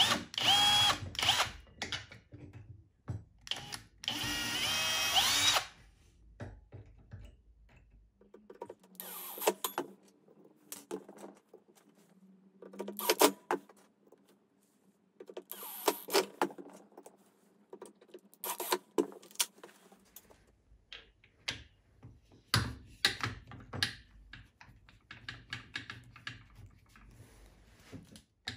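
Cordless drill-driver running in short bursts to drive screws, its motor whining and rising in pitch as it spins up, with clicks and clatter of screws and handling in between.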